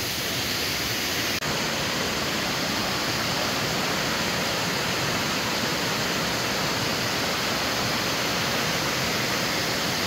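Waterfall rushing steadily, an even roar of falling water.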